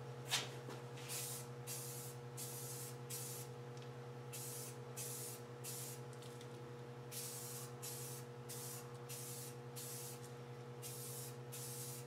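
Aerosol spray-paint can spraying in a dozen or more short hissing bursts with brief gaps between them, laying a coat of paint on a chrome handlebar. There is a single sharp tap near the start.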